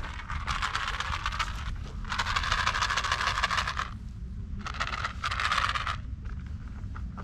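Close scraping, rubbing noise in three bursts of one to two seconds each, over a steady low rumble.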